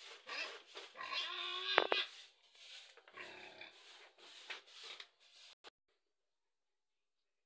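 Pigs squealing: drawn-out, high-pitched cries in the first two seconds, then shorter, fainter squeals and grunts. A sharp click comes near two seconds in, and the sound stops abruptly about five and a half seconds in.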